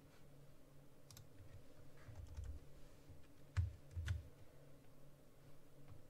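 A few faint computer keyboard keystrokes, scattered and uneven, with two louder clacks about half a second apart a little past the middle.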